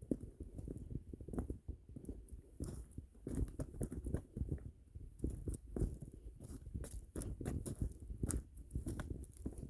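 Footsteps crunching over the dry stones and gravel of a creek bed, coming as an irregular run of crunches.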